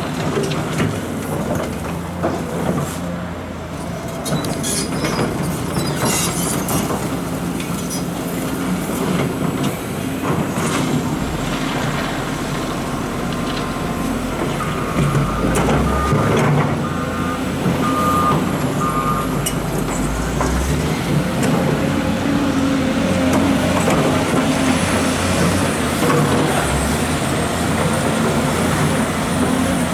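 Liebherr R926 excavator's diesel engine running under load while it loads a Mercedes-Benz Actros truck, mixed with the truck's engine idling. Scattered knocks of gravel and rock landing in the dump body, and a short run of beeps about halfway through.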